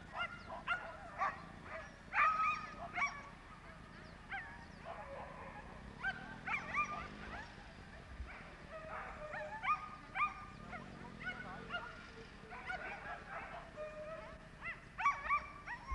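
Sighthounds yelping and barking: clusters of short, high calls in quick runs.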